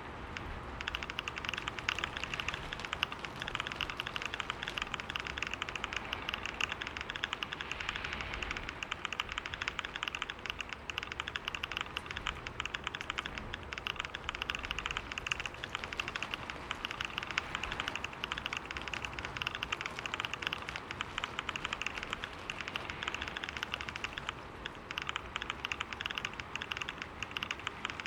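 Fast, continuous typing on a computer keyboard: a dense, unbroken stream of key clicks.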